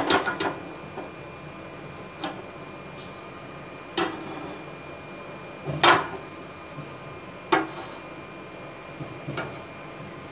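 Iron tawa, turned upside down over a gas burner, knocking now and then against the burner's metal pan support as it is moved around over the flame: about six sharp knocks spread out irregularly, the loudest around the middle.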